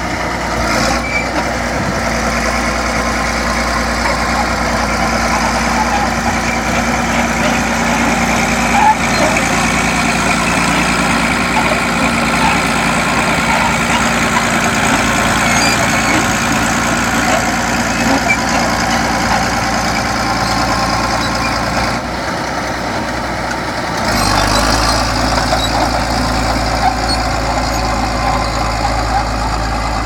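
Vintage crawler bulldozer's diesel engine running steadily as the machine pushes soil with its blade; the engine gets louder about 24 seconds in.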